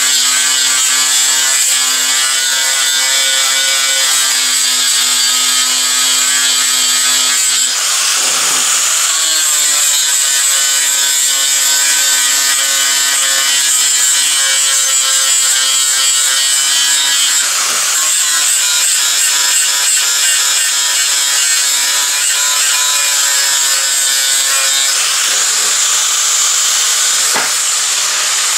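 Angle grinder with a 36-grit 3M Cubitron abrasive disc grinding a flat steel bar, the motor running steadily under load. Its whine shifts in pitch three times as the disc's contact with the steel changes.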